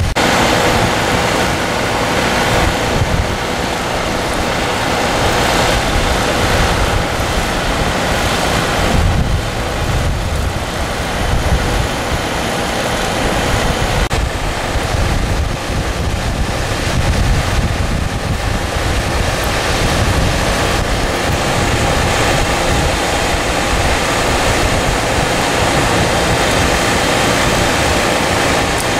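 Heavy rain and a torrent of muddy floodwater rushing through a channel, a steady noise with wind rumbling on the microphone.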